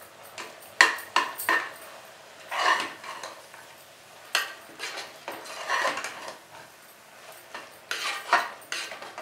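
Metal spoon scraping and clinking against the inside of an aluminium pressure cooker while stirring minced mutton with spice powders, in irregular strokes with a few sharper knocks against the rim.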